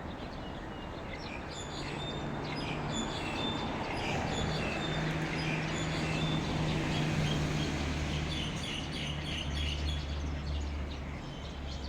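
A flock of birds chirping together in a tree, many short overlapping calls. A low steady hum runs underneath from about a second and a half in.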